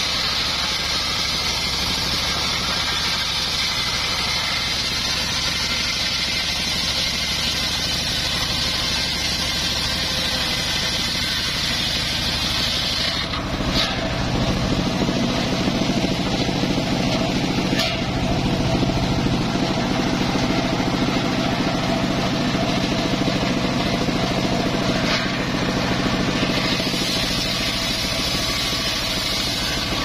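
Engine-driven homemade circular saw bench ripping a gmelina (white teak) log: a steady high hiss of the blade cutting through the wood for almost half the time. About halfway through the cut ends and the engine and spinning blade run free with a lower hum, and the high cutting hiss starts again near the end as the next piece is fed in.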